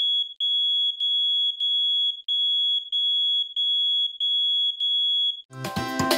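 High-pitched electronic warning beep, like a smoke alarm: one steady tone broken by short gaps about every two-thirds of a second, sounding as a danger signal. It stops near the end and upbeat music starts.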